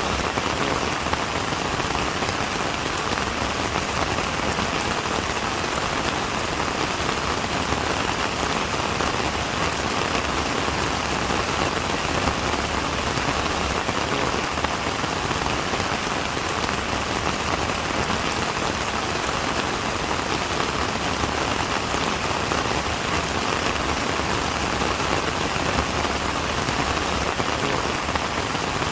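Steady rain falling on a surface: a dense, even patter that does not change.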